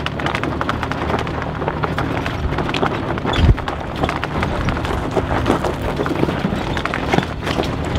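Toyota Tacoma pickup's engine pulling steadily up a steep, rocky dirt hill, under a constant irregular rattle and knocking of stones and bumps beneath the tyres and the truck jolting over them. A heavy thump comes about three and a half seconds in.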